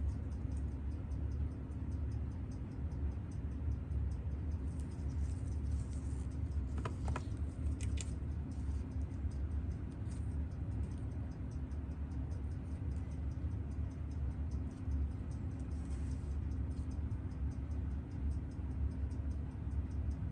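Fast, even ticking, several ticks a second, over a steady low electrical hum on a watchmaker's bench, with a couple of faint clicks about seven and eight seconds in.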